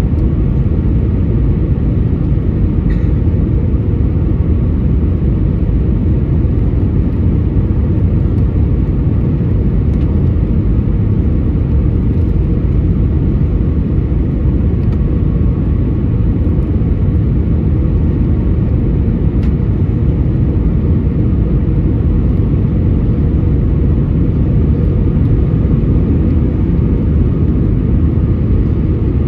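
Airbus A320 cabin noise on final approach: a steady low rumble of the engines and rushing air, heard inside the cabin.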